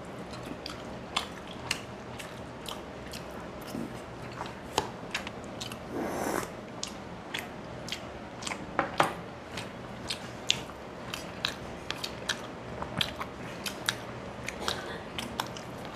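Close-miked mouth sounds of a man eating a soft, syrupy rasgulla: wet chewing and many sharp, irregular lip smacks, with a short breathy rush about six seconds in.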